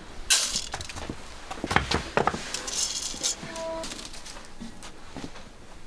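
Metal scoop scraping through soaked sticky rice in a bamboo basket, with a rustle of wet grains and several sharp clinks and knocks of metal against the basket and bowl.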